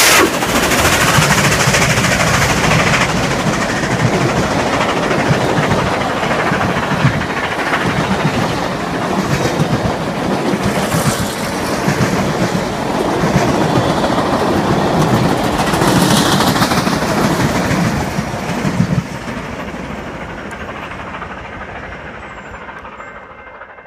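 Steam-hauled passenger train passing close by, behind Nickel Plate Road 2-8-4 Berkshire No. 765: the locomotive and then its heritage passenger coaches run past on steel wheels. The sound drops off sharply near the end and fades as the train moves away.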